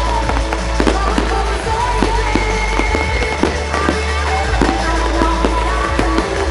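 Fireworks exploding in quick, irregular bangs and crackles over loud pop music with a heavy bass, played through the display's sound system.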